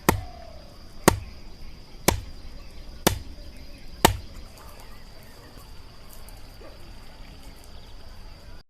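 Five sharp chopping strikes of a blade into wood, evenly spaced about a second apart, then stopping. Crickets keep up a steady high trill in the background.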